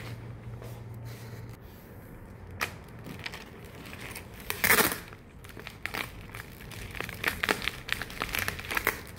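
Bouquet wrapping material crinkling and rustling as it is folded and handled, with a louder rustle about five seconds in and quick crinkles near the end, over a low steady hum.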